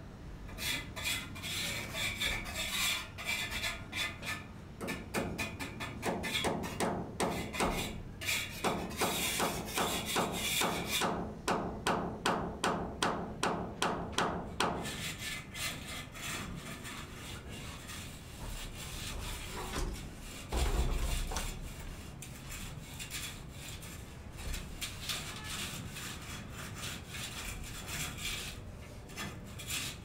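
Rhythmic scraping strokes, about two or three a second, running from about five seconds in to about fifteen seconds in, then fading to quieter background noise with a single low thump a little after twenty seconds.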